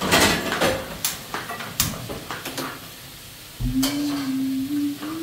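Metal cooking utensils clatter and scrape against a pan in quick knocks for the first couple of seconds. Then, about three and a half seconds in, a person starts humming a few long steady notes that step slightly up in pitch.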